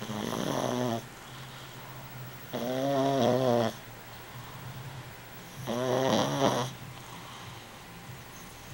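A sleeping pet snoring: three loud, pitched, rattling snores, each about a second long and roughly three seconds apart, with quieter breathing between.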